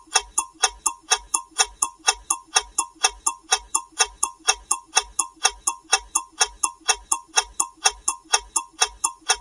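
Alarm clock ticking steadily, about four sharp ticks a second.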